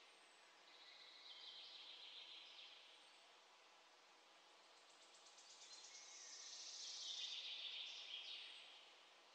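Near silence: a faint high hiss that swells twice and fades.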